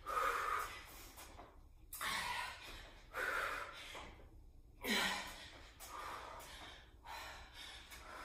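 A woman breathing hard during a kettlebell drill: about seven forceful exhales, roughly one a second, a couple of them voiced.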